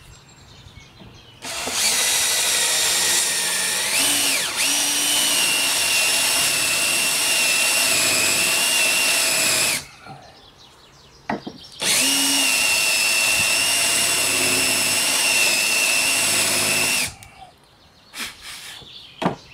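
Cordless drill with a countersink bit running at steady full speed, countersinking angled screw holes. It runs in two long stretches, about eight and five seconds, with a short blip between them. Its whine dips and rises briefly about four seconds in.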